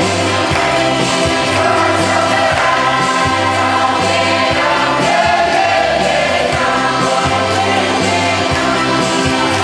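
A group of voices singing in harmony over a steady bass line and beat.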